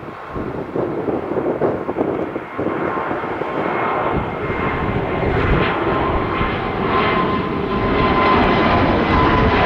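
Airbus A320neo jet engines at takeoff power as the airliner departs, a rumble with a steady whine, growing steadily louder.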